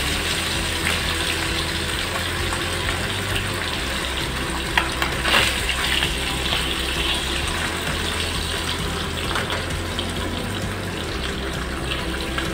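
Hilsa fish steaks sizzling steadily as they shallow-fry in hot oil in a kadhai, with two sharp clicks about five seconds in.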